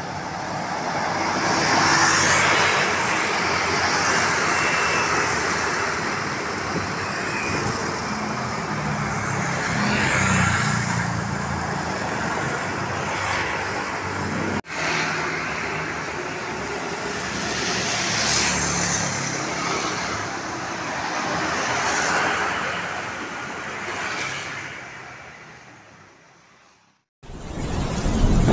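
City street traffic: a steady wash of road noise that swells several times as vehicles pass. It fades out near the end, and a sudden loud boom-like burst starts just before the end.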